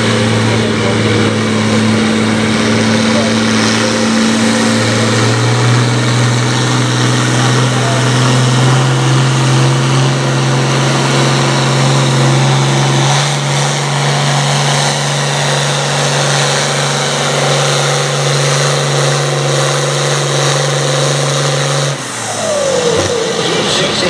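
International farm tractor's engine pulling a sled under full load. Its pitch steps up a few seconds in and then holds steady. Near the end it cuts off abruptly, and a different engine sound with wavering pitch follows.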